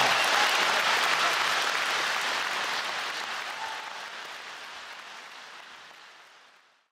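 Large audience applauding, the applause fading out steadily to silence near the end.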